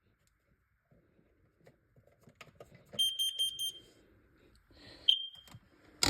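Carbon monoxide alarm sounding on its test button: a quick run of four high-pitched beeps about three seconds in, the four-beep pattern of a CO alarm, then a single beep about two seconds later. Faint clicks come just before the beeps, and a sharp click near the end.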